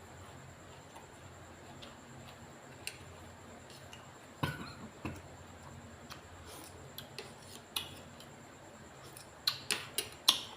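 Utensils clicking and clinking against dishes, as in eating from a bowl, in scattered light taps with four sharper clicks close together near the end.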